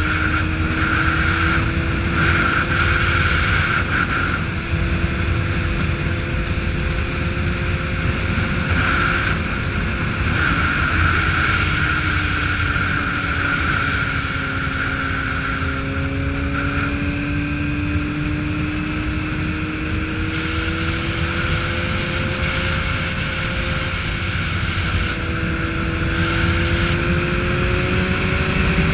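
Motorcycle engine running steadily at cruising speed, its note drifting slowly up and down with road speed, over a steady rush of wind and road noise heard from the rider's seat.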